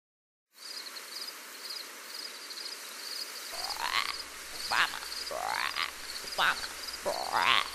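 Frogs calling: a high pulsed trill repeats steadily, and from about halfway a louder call sweeping upward in pitch comes roughly once a second.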